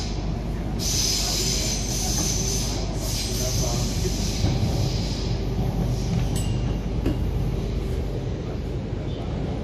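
MTR K-Train metro car running through a tunnel, heard from inside the car: a steady low rumble of wheels and running gear. High-pitched wheel squeal comes in about a second in and fades out around the middle.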